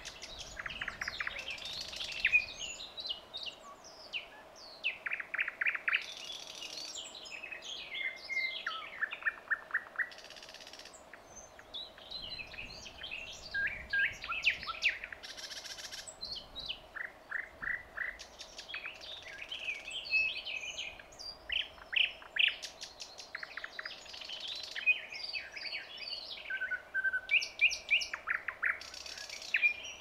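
Thrush nightingale singing: phrases of rapid repeated notes and rattling trills, one after another with short pauses between them.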